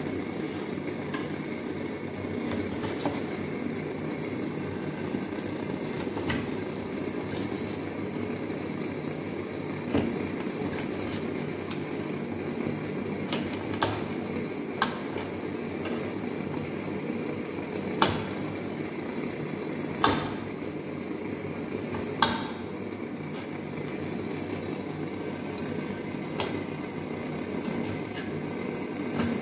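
Eel being cut into pieces with a curved blade on a wooden board, giving a handful of sharp knocks, the loudest three a couple of seconds apart in the second half. A steady low hum runs underneath.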